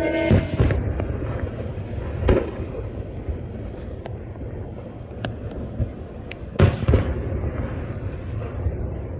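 Aerial firework shells bursting: one boom just after the start, another about two seconds in, and a double boom about seven seconds in, each ringing out briefly. Faint scattered cracks fall between them.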